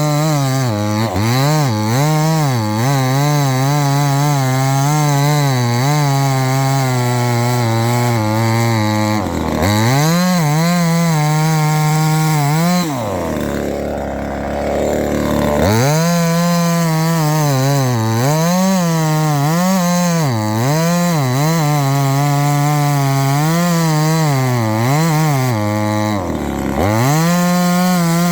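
Small two-stroke top-handle chainsaw cutting wood at high revs, its engine pitch wavering and sagging as it bogs under load. The saw can't take much pressure on the bar. About halfway through the engine drops back to a lower, idle-like pitch for a couple of seconds, and it dips sharply twice more, before revving up again.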